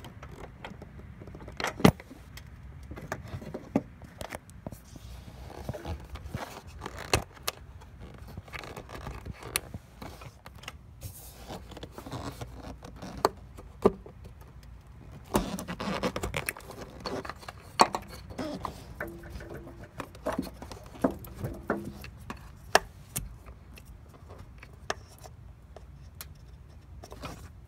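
Scattered sharp clicks and plastic scraping as long-nose pliers pry at a plastic push-pin harness clip and fingers work the MAF sensor's wiring connector. The clicking is busiest about halfway through.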